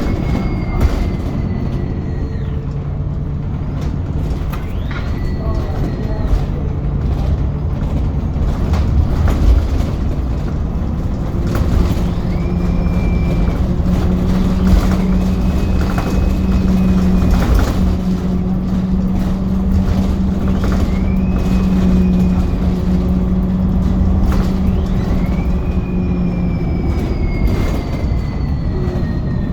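VDL Pulsar single-deck bus on the move: a steady low drivetrain drone with a high whine from the differential that rises sharply, holds, then falls away, again and again every few seconds.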